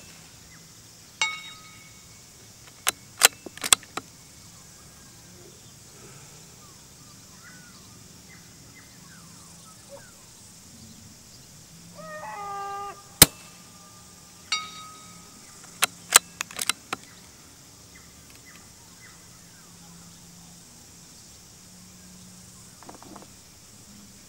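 Two shots from a bolt-action .22 LR rifle firing subsonic rounds, about thirteen seconds apart. Each is followed about a second later by the faint ring of a steel gong target hit at 203 m. A quick series of metallic clicks follows each as the bolt is cycled.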